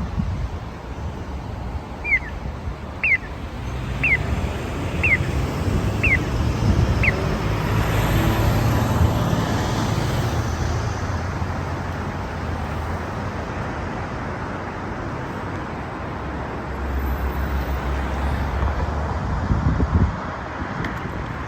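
Tassimco accessible pedestrian signal chirping six times, about once a second, each chirp a short falling tone, the kind of chirp that marks the walk phase. Road traffic passes under it, with vehicles going by louder after the chirps stop.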